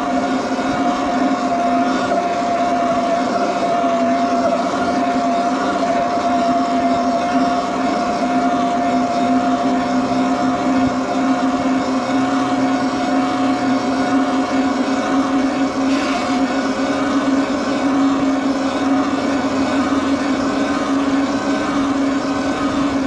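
Electric bike motor running at a steady pitch while riding at constant speed, with tyre and wind noise over it.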